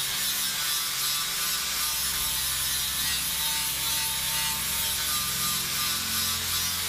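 Angle grinder running steadily with its disc pressed against the Piaggio ET2 scooter's metal front bodywork, grinding off paint and surface rust.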